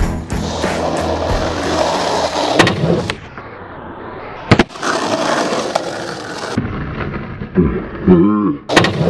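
Skateboard wheels rolling on pavement, with one sharp clack of the board about four and a half seconds in. Music plays over the first three seconds, and a voice calls out near the end.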